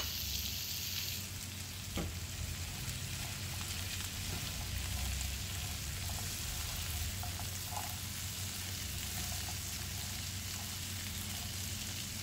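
Boiled black chickpeas (kala chana) with onion and tomato sizzling steadily in hot oil in a frying pan while a spatula stirs spices through them, with a single knock of the spatula about two seconds in.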